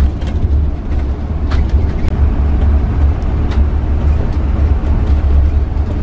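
Ford V10 gasoline motorhome driving, heard from inside the cab: a steady deep engine and road rumble, with a few light clicks or rattles.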